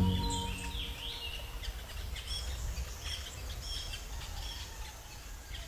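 Forest ambience with many small birds chirping and calling in short high notes over a low steady background hum. Music fades out within the first second, and the whole sound slowly fades down.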